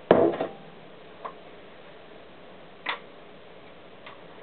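A few short clicks and knocks of engine parts being handled during disassembly: a louder knock at the start, then two lighter clicks, about a second in and near three seconds in.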